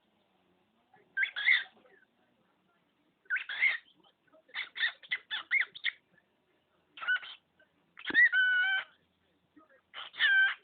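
Cockatiel vocalizing: short chirps and squawks in irregular bursts, one quick chattering run, and a held whistled note about eight seconds in.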